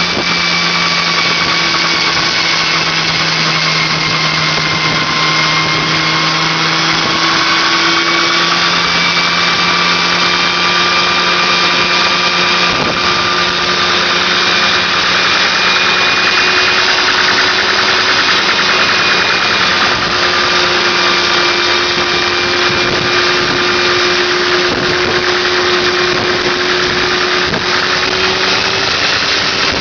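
Homemade single-seat helicopter's engine running steadily, its note drifting slowly and slightly in pitch.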